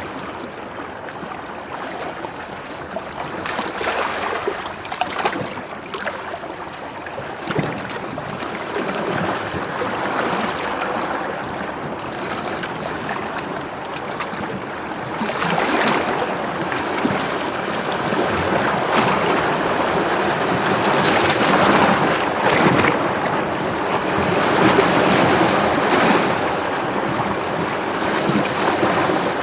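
Sea waves washing and breaking: a continuous rush of surf that swells louder several times, the loudest surges in the second half.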